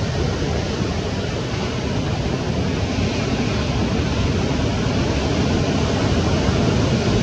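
Steady rushing noise of breaking surf, with wind buffeting the microphone.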